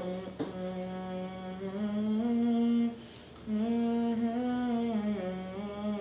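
A man humming a slow tune with closed lips, holding and gliding between notes, with a short pause for breath about three seconds in. A couple of light clicks near the start.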